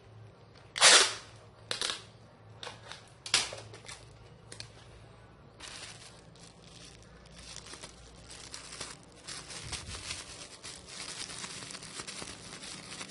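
Parcel packing material being handled: four short, sharp tearing noises in the first few seconds, the first the loudest. From about six seconds in comes a continuous crinkling and rustling of plastic wrapping.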